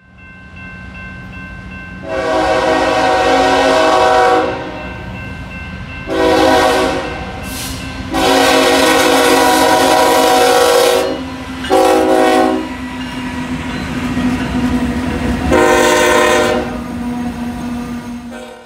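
BNSF diesel locomotive's air horn sounding five chord blasts, the fourth one short, the whistle signal for a grade crossing, over the steady hum of the passing train.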